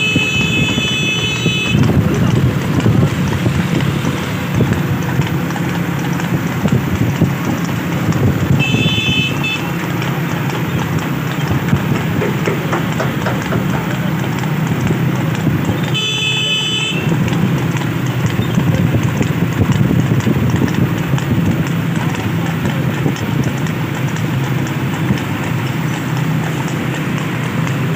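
A horse's hooves clip-clopping fast and steadily at a racing trot on a road, over the steady hum of an accompanying vehicle's engine. A high-pitched horn sounds briefly three times: right at the start, about a third of the way in, and just past the middle.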